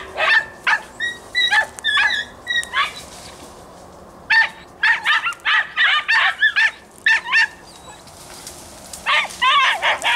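Podenco Andaluz hunting dogs yelping in quick runs of high barks, three spells with short pauses between, as they give tongue while working a rabbit's scent in the brush.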